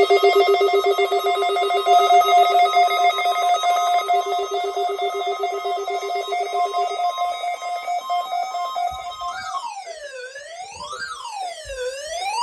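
Weather radio warning alarm tone sounding for a weekly test: a harsh, rapidly pulsing chord of steady tones. About nine seconds in it changes to a wailing siren tone that rises and falls roughly every second and a half.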